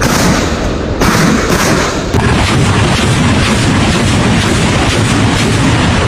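Truck-mounted BM-21 Grad multiple rocket launcher firing a salvo. Sharp launch blasts come about a second apart, then run together into a continuous dense roar from about two seconds in.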